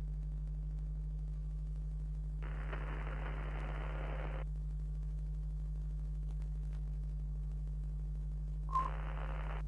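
Steady low electrical hum, like an old television set, with a two-second burst of static about two and a half seconds in, and a shorter burst near the end that opens with a brief beep-like blip, the loudest moment.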